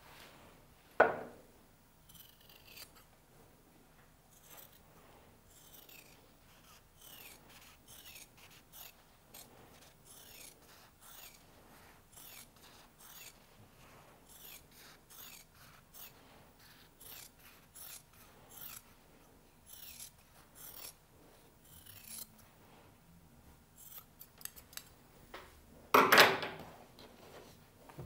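Dressmaker's scissors snipping in a steady run of short, crisp cuts, about one a second, trimming a sewn shirt collar's seam allowance down to about 2 mm. There is a knock about a second in and a louder thump near the end.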